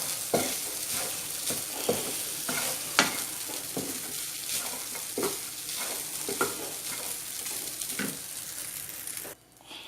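Carrot rice sizzling in hot oil in a pan while a utensil stirs it, scraping and knocking against the pan in repeated strokes about once a second. The sizzle cuts off suddenly just before the end.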